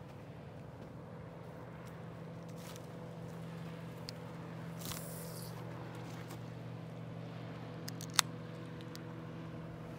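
Vehicle engine idling steadily, with a sharp click about eight seconds in.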